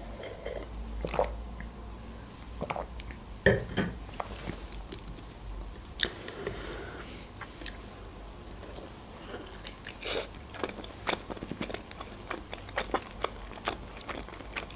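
Close-miked eating: a sip from a glass at the start, then biting and chewing pan-fried chicken wings, with many short crisp smacks and crunches scattered throughout.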